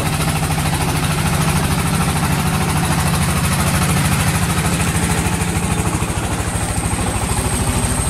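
Engine of a wooden fishing boat running as the boat passes close by, a steady fast chugging that eases a little near the end as it moves away.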